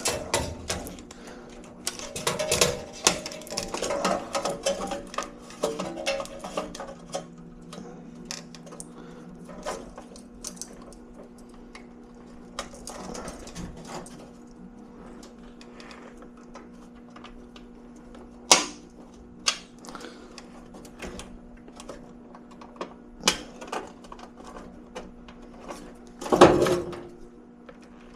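Scattered small clicks, taps and rustles of hands working wiring and parts inside a furnace cabinet during a control-board swap, over a steady low hum. One sharp click comes about 18 seconds in and a louder clatter near the end.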